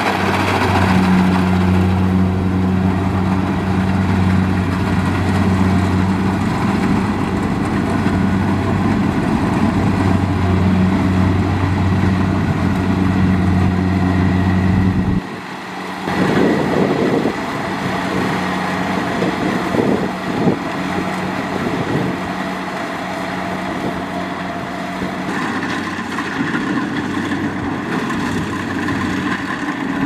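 Kubota DC70 Plus crawler rice combine harvester running while harvesting, its diesel engine and threshing gear making a loud, steady hum. About halfway through the sound cuts abruptly to a lighter, noisier harvester running steadily.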